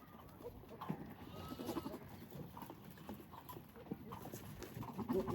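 Goats making several short calls, with a few knocks in between.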